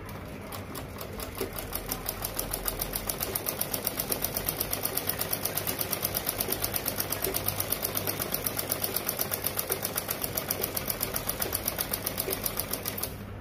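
Black Usha sewing machine stitching, a fast even clatter of about eight stitches a second. It picks up speed over the first couple of seconds and stops abruptly near the end.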